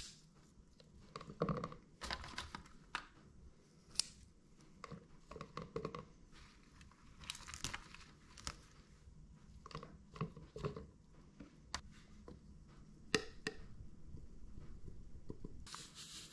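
Fresh dill being stripped and torn from its stems by hand: irregular soft rustles and small snaps, with a few sharper ticks. Near the end, a short steady hiss of salt pouring into a plastic blender cup.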